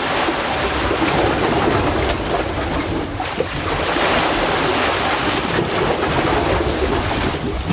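Sea surf surging and churning white through a narrow gap between coral rocks, a steady loud wash, with wind buffeting the microphone.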